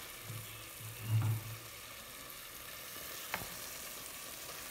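Chicken pieces frying in oil in an aluminium pressure cooker, a steady sizzle, with a brief low rumble about a second in and a single sharp click a little past three seconds in.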